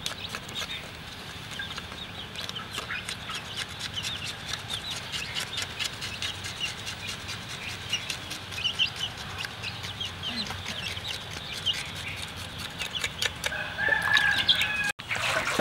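Chickens clucking against a run of short wet squelches and rubbing from hands scrubbing a cow's hide in a basin of water. A longer, held call comes near the end.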